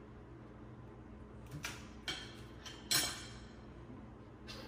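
A few short clicks and clatters of forks and crab-leg shells being handled over plates, the loudest about three seconds in, over a faint steady hum.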